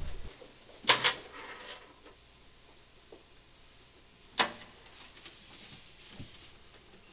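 Handling knocks and clunks as an acoustic guitar is picked up and its strap slung on: two sharp knocks about a second in and another loud one about four and a half seconds in, with a fainter knock shortly before the end.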